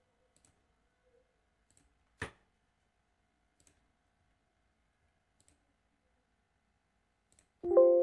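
A few faint computer mouse clicks, one sharper click about two seconds in. Near the end a loud bell-like chime strikes and rings on, fading slowly.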